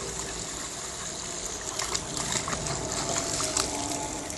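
Small waterfall pouring steadily with a bright hiss, with a run of short sharp splashes from about two seconds in, as the dog plays in the water.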